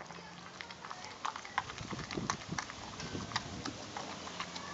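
American pit bull terrier chewing a raw turkey drumstick: irregular wet crunches and clicks of teeth on meat and bone.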